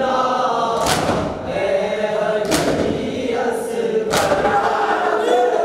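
Group of men chanting a nauha together, with loud in-unison slaps of hands on chests (matam) about every second and a half.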